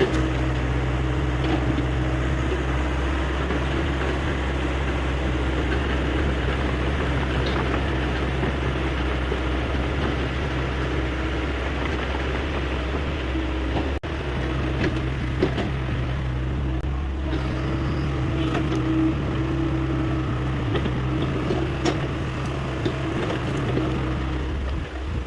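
Hyundai 85A excavator's diesel engine running steadily at work, with a few light knocks from the machine.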